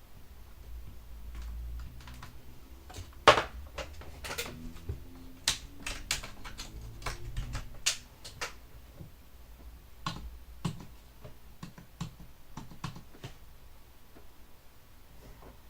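Keys of a Genius LuxeMate i202 compact keyboard being pressed in an irregular run of clicks, the loudest clack about three seconds in, the presses growing sparser toward the end.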